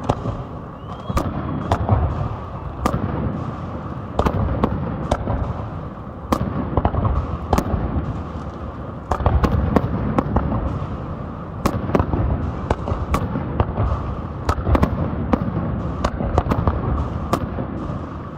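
Aerial firework shells bursting in a professional display: many sharp bangs in irregular quick succession over a continuous low rumble.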